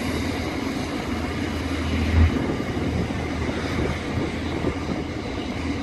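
Coal train passing, a steady rolling rumble with a single louder knock about two seconds in.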